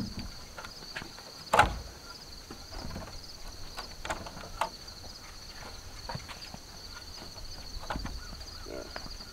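Scattered sharp wooden knocks and bumps as a framed stud wall is jiggled into place, the loudest about a second and a half in, over steady chirping of crickets.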